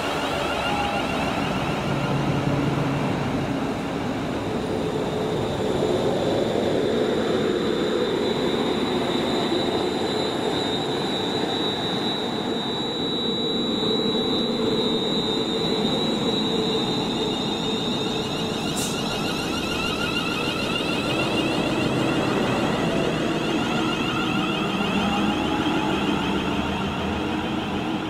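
London Northwestern Railway electric multiple unit moving along the platform, with a steady high whine through most of it and motor tones rising slowly in pitch near the end as it gathers speed.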